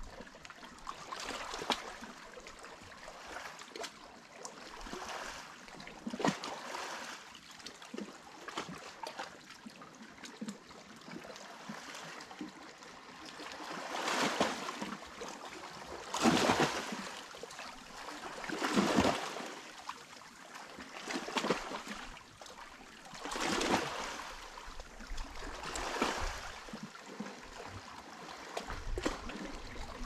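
Small Mediterranean sea waves washing and splashing on the shore, one after another every two to three seconds, with louder ones in the second half.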